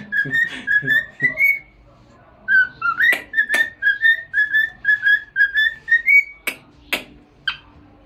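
Cockatiel whistling a quick string of short, repeated notes in two runs with a short pause between, the second run ending on a rising note. Three sharp taps follow near the end.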